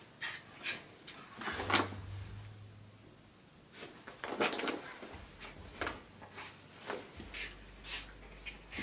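Freshly bathed, wet dog rolling and rubbing itself on carpet: short scratchy scuffs of fur and body against the carpet pile, irregular, about one or two a second, with a quieter spell a couple of seconds in.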